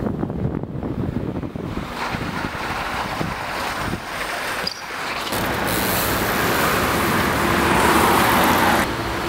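Wind buffeting a moving camera's microphone over street traffic rumble. It changes abruptly a few times and is loudest and hissiest in the second half.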